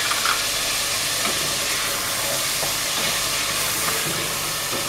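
Beef pieces frying in hot oil in a deep pot, a steady sizzle, with a few light knocks of a wooden spoon stirring the meat and spices.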